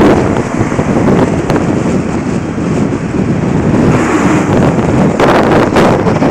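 Wind rushing over a phone's microphone at the side window of a moving vehicle, mixed with road noise; the rush surges louder about five seconds in.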